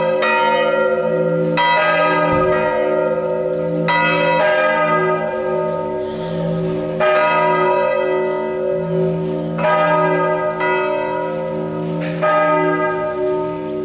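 Three swinging church bells, cast in 1640, 1838 and 1851 and tuned to A sharp, B and D sharp, ringing in full swing. Clapper strokes fall every second or two, each one ringing on over the hum of the ones before.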